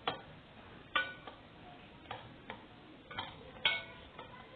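Wire whisk knocking against the sides of a stainless steel bowl while beating a raw egg mixture: irregular clicks, roughly one or two a second, each with a short metallic ring.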